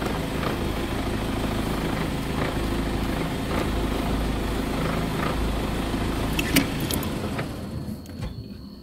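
Safari game-drive vehicle's engine running steadily as it creeps forward, dying away near the end.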